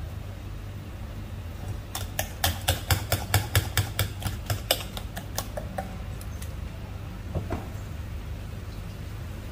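A quick run of sharp clicking taps, about five a second, starting about two seconds in and lasting some three and a half seconds, over a steady low hum.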